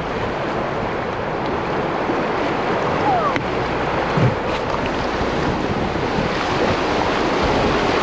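Whitewater of a river rapid rushing and splashing around a canoe, a steady roar of water with wind buffeting the microphone.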